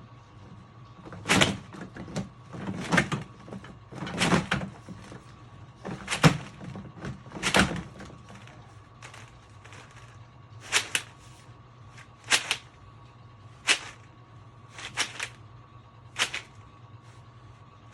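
Metal flexshaft drain-cleaning cable clanking and rattling as it is worked back into a Ridgid K9-204 flexshaft machine: a string of about a dozen sharp knocks, one every second or so, heavier in the first half.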